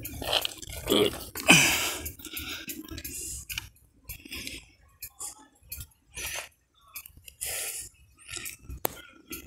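Irregular crunching and rustling of footsteps on dry leaves and grass, with handling noise close to the microphone and a few sharp clicks.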